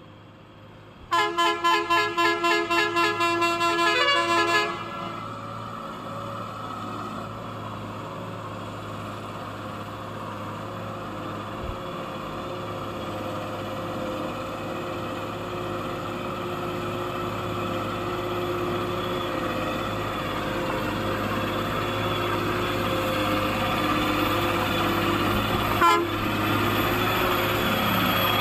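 Truck horn sounding in a rapid pulsing pattern, about four beeps a second for roughly three seconds. Then a truck engine runs steadily and grows gradually louder, with one short knock near the end.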